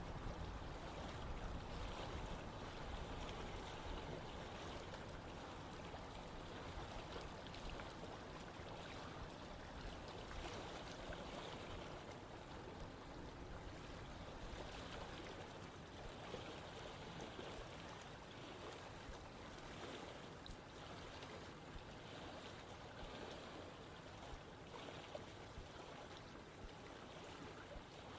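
Steady rush of running water, as from a stream, with some extra low rumble in the first second or two.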